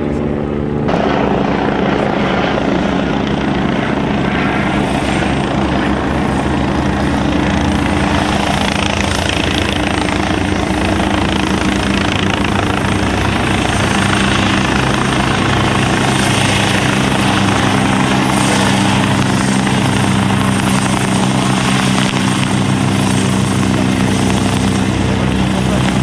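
Military helicopter hovering low: a steady, loud rotor and engine drone with a faint high whine above it.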